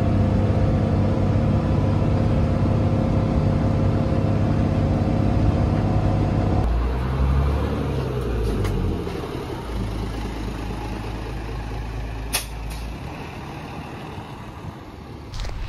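A bus engine drones steadily, heard from inside the passenger cabin. About six and a half seconds in, the sound switches to outdoors beside the idling bus: a quieter low running hum with a few clicks and one short sharp noise, fading towards the end.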